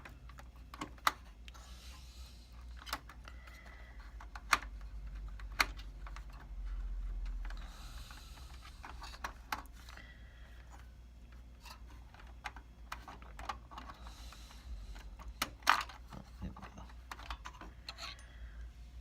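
Hands fitting a second Xeon CPU into a Dell PowerEdge SC1430 server's socket: scattered sharp clicks of small plastic and metal parts being handled, with a few short stretches of light rustling, over a steady low hum.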